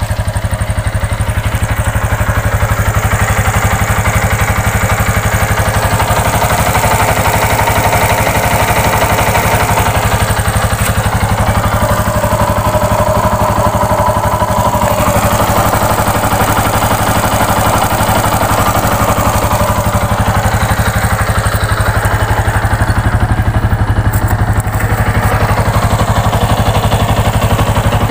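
Yamaha New Jupiter MX's 135 cc single-cylinder four-stroke engine idling steadily. It runs on old Enduro Racing oil and sounds slightly rough, like a tractor.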